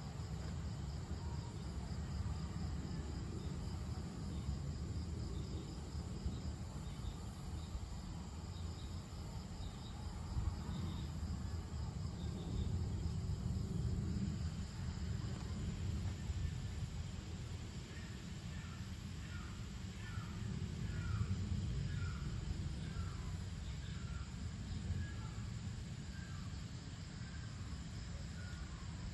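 Outdoor dusk ambience: insects chirring steadily and faintly over a low rumble. Past the middle, a bird calls a run of short falling notes, about one and a half a second.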